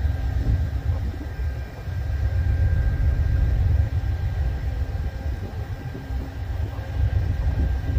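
Freight train rolling past: a steady low rumble of the cars on the rails, with a faint steady high tone above it.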